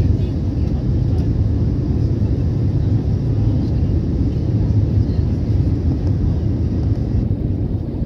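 Airbus A320 cabin noise in flight: the jet engines and airflow give a steady, loud low rumble, heard from inside the cabin over the wing.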